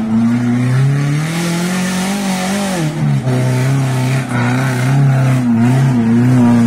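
Off-road 4x4 jeep's engine revving under load as it works down a rutted mud track: the engine note climbs over the first two seconds, drops sharply about three seconds in, then holds with brief dips as the throttle is eased and pressed again.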